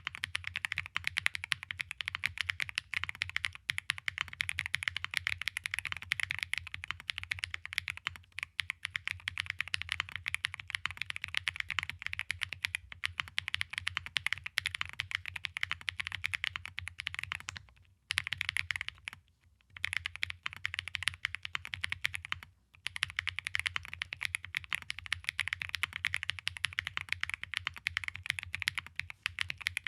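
Fast, continuous typing on an Angry Miao AM Compact Touch 65% mechanical keyboard: a dense run of key clacks, broken by a few brief pauses about two-thirds of the way in.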